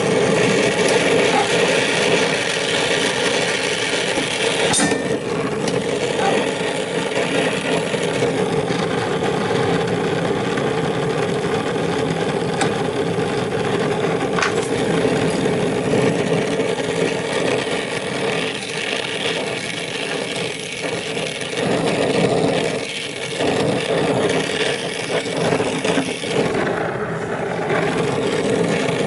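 A machine running steadily with a rough, scraping noise, level throughout apart from a slight dip about two-thirds of the way in.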